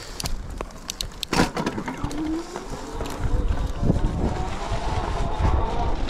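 Fat-tire electric bike climbing a rocky trail. Its tyres and frame rattle and knock over the rocks, with one sharp knock about a second and a half in. After that a thin whine rises and then holds, typical of the hub motor working under load, over a low wind and tyre rumble.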